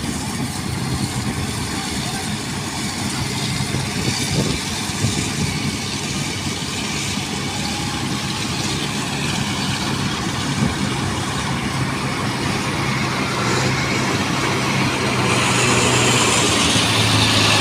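Rice combine harvester running steadily while cutting, a continuous engine hum with mechanical noise that gets louder over the last few seconds.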